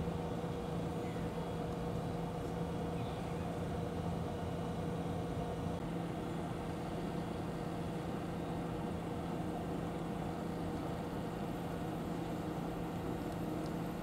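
Steady mechanical hum: a constant low drone with a second steady tone above it.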